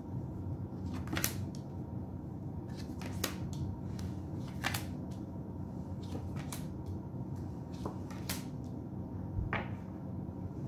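Tarot cards being drawn off a deck and laid down on a table one at a time: a series of soft snaps and taps every second or two, over a steady low hum.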